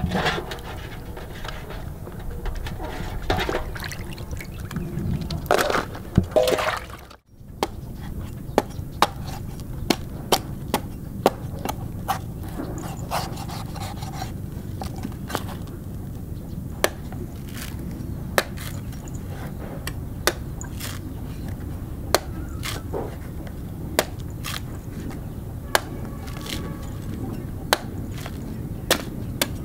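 A cleaver chopping into the husk of a green coconut: sharp, irregular knocks about once a second, starting about eight seconds in. Before that comes a few seconds of splashy handling sounds.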